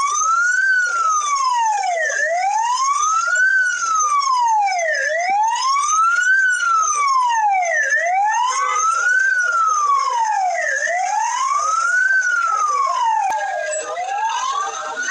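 Emergency vehicle siren wailing, its pitch rising and falling slowly, about once every three seconds.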